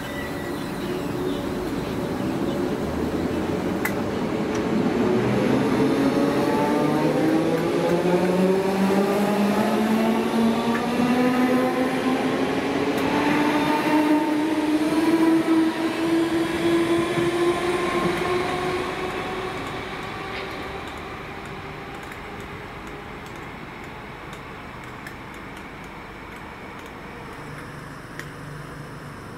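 Merseyrail electric multiple unit accelerating away, its traction motors giving a whine of several tones that rise steadily in pitch together. The train is loudest about midway and fades as it draws off.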